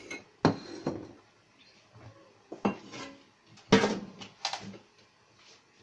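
Dishes clattering as a plate is fetched and handled: a run of separate sharp clinks and knocks, the loudest a little under four seconds in.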